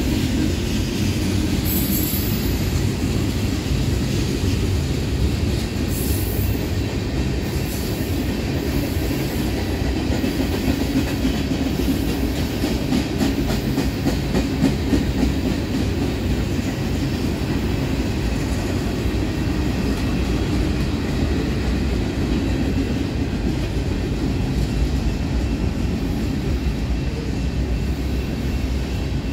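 Mixed freight train of tank cars and boxcars rolling steadily past: a continuous low rumble with the clickety-clack of wheels over rail joints.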